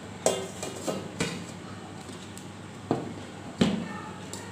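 Stainless-steel thalis clanking and knocking against each other as they are handled and turned over to flip a steamed dhokla out of its plate. About six sharp metallic knocks, some with a short ring; the loudest come just after the start and about three and a half seconds in.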